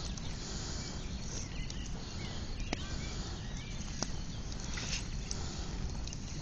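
Bonfire of branches and brush crackling over a steady low noise, with a few sharp pops, the loudest about two and a half and four seconds in.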